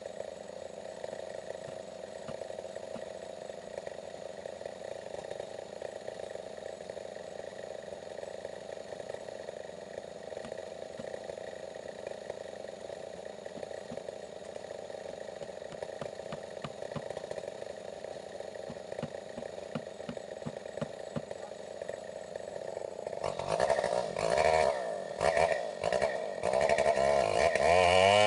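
Stihl 070 two-stroke chainsaw running steadily at a low, even pitch. Near the end it is throttled in uneven bursts, then revved up with a rising pitch.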